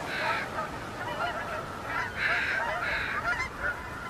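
A flock of geese calling, with many short honks overlapping continuously.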